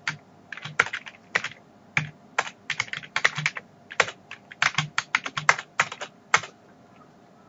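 Typing on a Compaq computer keyboard: quick, irregular key clicks that stop about six and a half seconds in.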